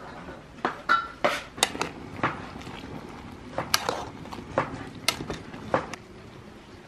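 Metal spoon and steel cookware clinking: a string of irregular sharp clinks over about five seconds, one ringing briefly about a second in.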